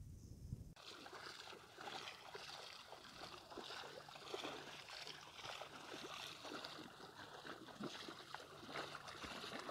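Bare feet wading through ankle-deep seawater at the shoreline, with small splashes and trickling water at each step; the splashing starts abruptly under a second in.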